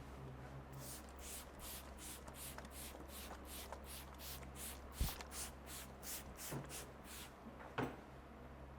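Hands rubbing briskly over the hair and scalp during a head massage, in quick even strokes about three a second. A sharp click comes about five seconds in and another near the end, over a low steady hum.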